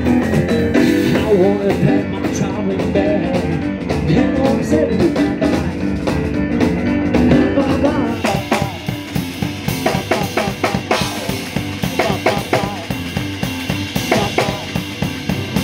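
Blues band playing: keyboard over a drum kit, with the drum beats coming to the fore about halfway through.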